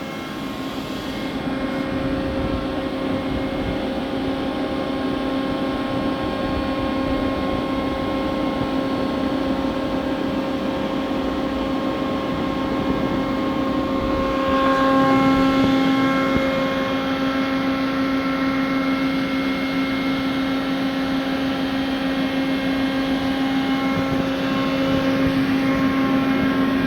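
A Mori Seiki SL-15MC CNC turning center standing powered up, giving off a steady mechanical hum with a few steady tones. It grows slightly louder about halfway through.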